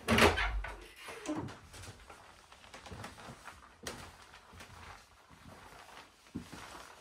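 An interior wooden door's handle is pressed and the door is pushed open, the loudest sound, at the very start. Footsteps and small knocks on wooden floorboards follow.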